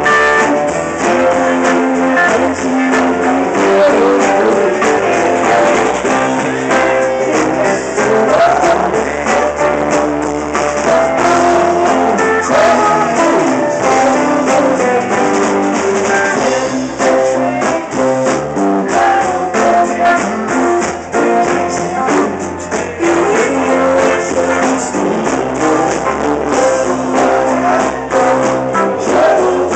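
Live rock band jamming loudly: electric guitars, electric bass and a drum kit playing together.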